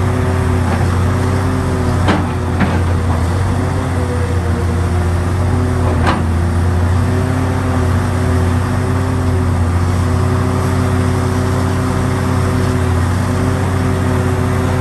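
Hitachi Zaxis 670 excavator's diesel engine running steadily under load as it digs into an earth face, with three sharp knocks, about two, two and a half and six seconds in.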